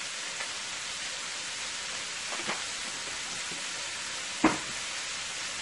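String beans, carrots and cabbage sizzling steadily as they fry in a pot, with a faint tap about two and a half seconds in and a sharper knock about four and a half seconds in.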